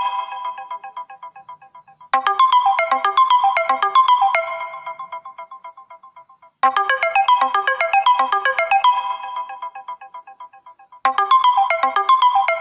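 Mobile phone ringtone from an itel P32: a short melodic phrase of quick, bright notes that rings out and fades, repeating about every four and a half seconds, three times here.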